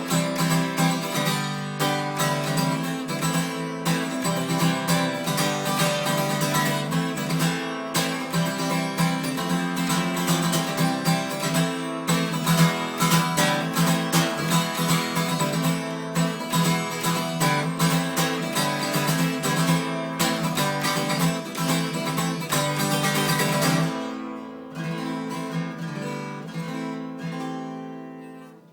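Yamaha FG340 Mark 1 acoustic guitar strummed steadily in dense chords. About 24 seconds in, the strumming thins to a few strokes, and the last chord rings away.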